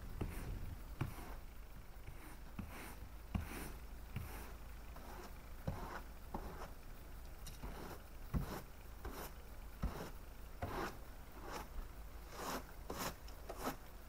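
Snow and ice being swept and scraped off a car's windshield and hood by hand, in short irregular strokes.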